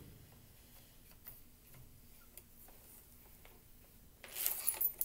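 Faint, irregular clicking of a demonstration teaching clock's hands being turned. About four seconds in, a louder rustle of handling starts.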